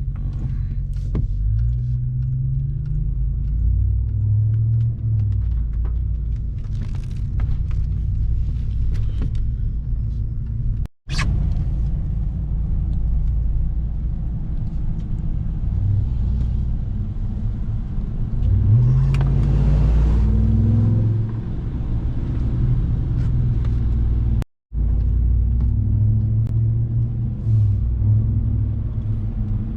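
2021 Ram 1500 TRX's supercharged 6.2-litre Hemi V8 running while driving, its low drone rising in pitch a few times as the truck accelerates, most strongly about two-thirds of the way in. The sound breaks off completely for a moment twice.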